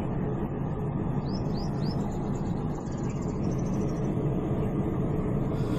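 Steady hum and air rush of running HVAC machinery, with three short, faint, high rising chirps about a second and a half in.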